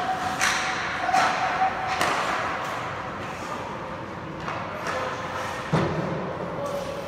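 Ice hockey drill: skate blades scraping the ice and sharp clacks of sticks and puck in the first two seconds, then a heavy thud near the six-second mark as the skater collides with the goaltender at the net.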